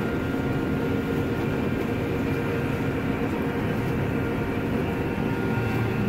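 Combine harvester running steadily while cutting wheat, heard from inside the cab: an even machine drone with a few steady hum tones.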